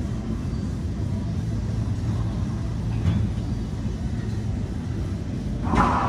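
Steady low rumble of an indoor racquetball court's room noise. Near the end comes a sharp knock that rings on in the court.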